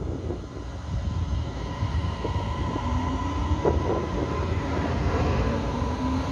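Taiwan Railway EMU500-series electric multiple unit pulling away from the platform and picking up speed: a low rumble with a steady high whine, and from about halfway through a lower tone that climbs in pitch as it accelerates.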